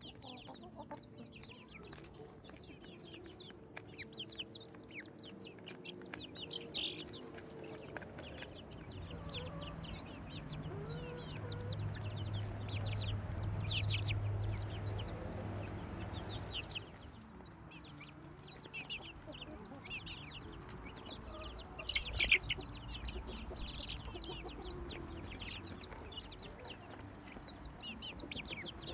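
A group of chicks peeping, many short high cheeps in quick succession, with a louder flurry about two-thirds of the way through. A low hum swells and fades in the middle.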